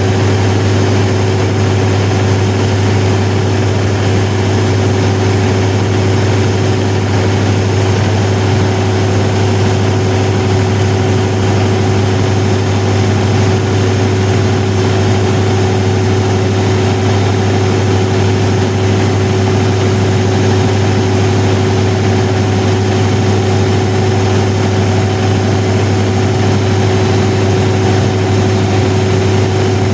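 1000 kW diesel generator set running at a steady speed, with a deep, even drone and a steady tone above it that do not change.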